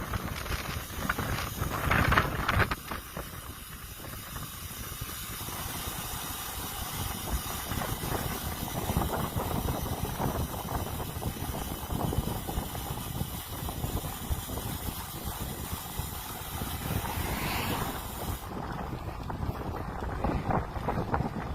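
Steady rushing wind noise on the microphone of a camera riding along on a moving road bike. The high hiss falls away near the end.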